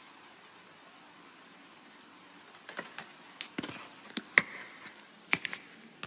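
Faint hiss, then from about two and a half seconds in a dozen or so irregular sharp clicks and taps. The sound cuts off suddenly near the end.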